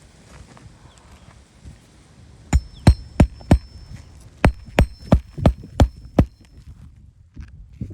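Roofing nails being driven into asphalt shingles: about ten sharp strikes at roughly three a second, in two runs with a short pause between them.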